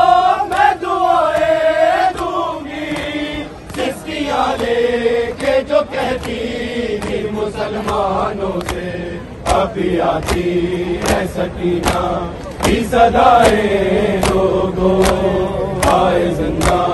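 Men chanting a noha, a Shia mourning lament, with rhythmic chest-beating (matam) slaps keeping time, plainest from about six seconds in.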